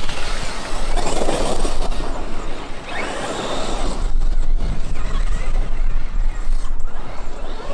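Traxxas X-Maxx electric RC monster truck driving, its brushless motor whine rising and falling with the throttle over a haze of tyre and dirt noise.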